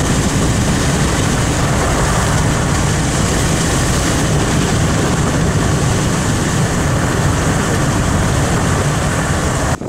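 Loud, steady wind noise rushing and buffeting the microphone, with heavy low rumble, cutting off abruptly near the end.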